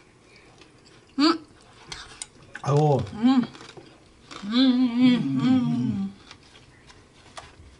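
A woman's voice with her mouth full of food: a short exclamation ("aigo"), then a drawn-out hum of about two seconds with a wavering pitch, an appreciative "mmm" while chewing.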